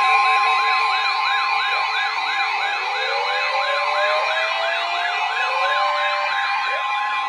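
Electronic siren warbling rapidly, about three up-and-down sweeps a second, over a steady high-pitched alert tone. From a few seconds in, a lower siren sweeps upward now and then.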